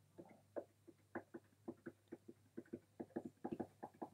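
Fingers tapping the rubber pads of a Novation MIDI controller: a faint, irregular run of soft taps, several a second.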